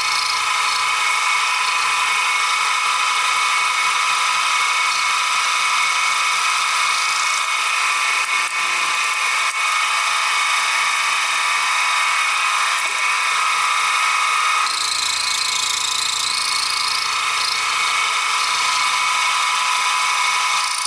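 Sieg SX2P mini mill running, its small end mill cutting a slot in a brass crosshead. The mill gives a steady high-pitched whine that shifts slightly about three-quarters of the way through.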